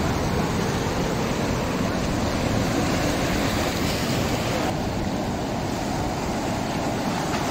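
Ocean surf breaking and washing over and between rocks: a steady rush of water.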